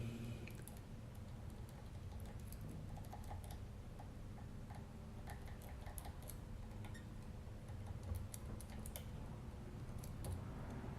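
Faint, irregular metallic clicks and ticks of a pick pressing and tapping the pins of a seven-pin tubular lock under light tension, as the pins are set one by one.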